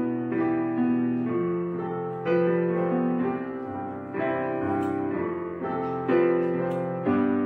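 Background music: gentle piano playing slow held chords.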